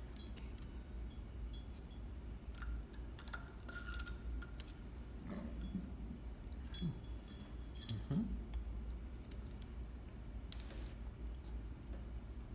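Scattered light clicks and small metallic taps of a Juki MO-6700DA serger being handled during threading, over a steady low hum. The loudest click comes about eight seconds in.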